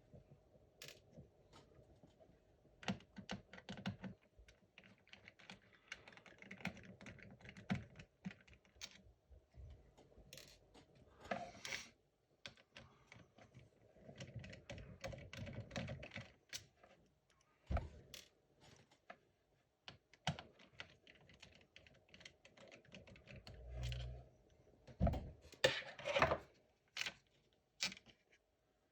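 Small screwdriver backing out the four tiny screws that hold a laptop's hard-drive bracket: faint, irregular clicks, ticks and scrapes of metal, with a few louder taps.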